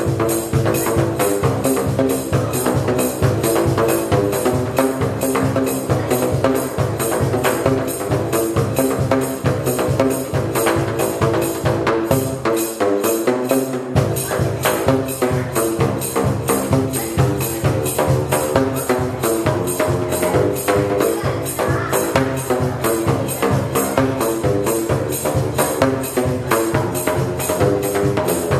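Pipe drums made from plastic drain pipes of different lengths, struck with flip-flops to play a fast tune of pitched, hollow slaps over a steady beat. The low notes drop out briefly about halfway through.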